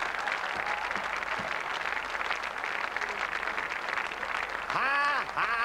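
Studio audience applauding, a steady crackle of many hands clapping. Near the end a man's voice cries out loudly over it.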